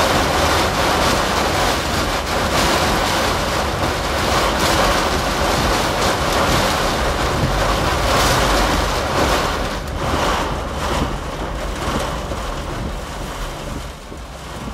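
Tornado wind and rain battering a vehicle, heard from inside the car as a loud, steady rush that eases toward the end.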